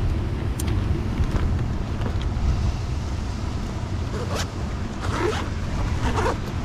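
Rucksack zip being pulled shut in a few short rasps in the second half, over a steady low wind rumble on the microphone.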